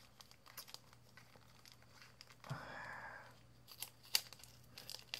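Faint crinkling and scattered small clicks of a plastic bag being handled and cut at with the edge of a kukri machete, with one longer rustle about two and a half seconds in.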